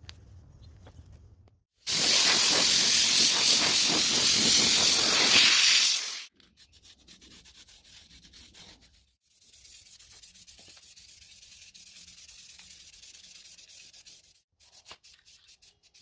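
Sanding on a Datsun 280Z dashboard. A loud, steady stretch of rubbing runs for about four seconds, and a quieter, hissier stretch of rubbing comes later. Short scratching strokes follow near the end.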